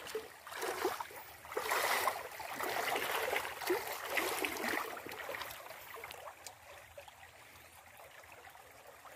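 Shallow stream water sloshing and grass rustling as a person wades in and sets a wire-mesh fish trap in the water. The movement noise fades after about five seconds, leaving the stream's soft trickle.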